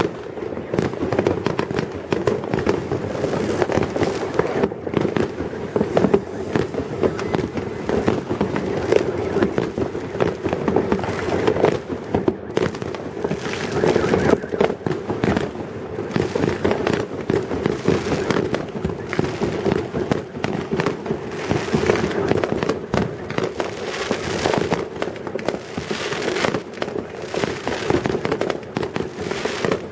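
Many fireworks and firecrackers going off at once across a city, a dense, unbroken barrage of bangs and crackling with no pause.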